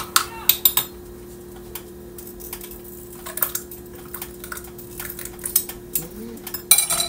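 A metal spoon clinks against a glass jar while stirring, then scrapes and taps as cooked tapioca pearls are spooned out of a wire mesh strainer into the jar. The clinking is sharpest at the start and again in a quick cluster near the end, with a steady low hum underneath.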